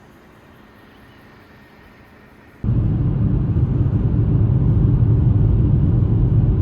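Faint hiss, then about two and a half seconds in a loud, steady low vehicle rumble starts abruptly and holds.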